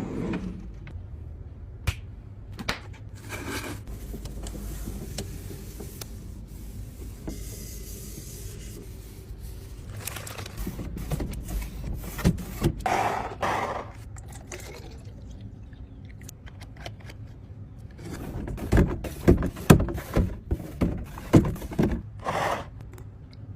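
Food containers and their lids being handled: scraping, clicks and knocks, bunched about halfway through and again in a run of sharper knocks near the end.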